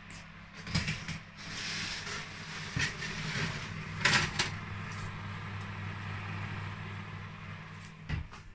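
A metal baking tray is slid onto an oven rack with scraping and clinks, over the steady hum of the convection oven's fan. Near the end the oven door shuts with a knock.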